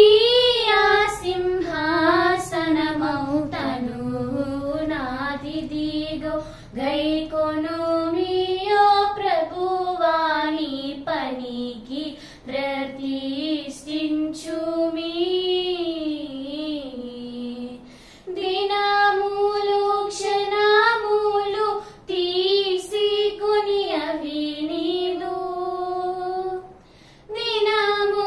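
Two girls singing a Telugu Christian hymn together in unison, in long melodic phrases with short pauses for breath about two-thirds of the way through and near the end.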